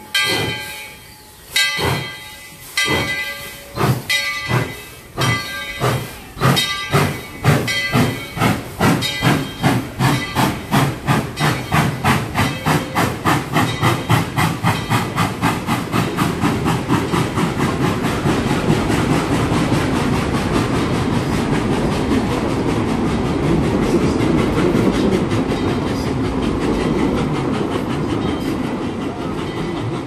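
Tweetsie Railroad No. 12, a 4-6-0 steam locomotive, pulling away. Its exhaust chuffs start about a second apart and quicken steadily, then run together into a continuous rushing beat about halfway through.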